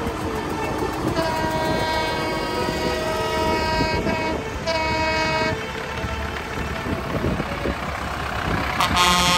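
Air horn on a passing tractor sounding: a blast of about three seconds, a short second blast, and a brief higher blast near the end. Tractor engines run underneath as a steady low rumble.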